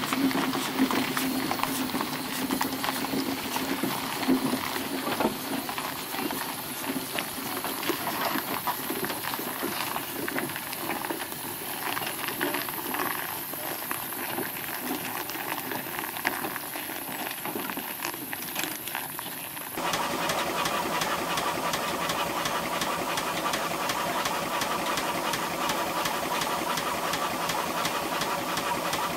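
Steam traction engine working: a steady hiss of steam with the clatter and strokes of its engine. About twenty seconds in, the sound cuts abruptly to a steadier, even-toned engine note from a Burrell showman's engine.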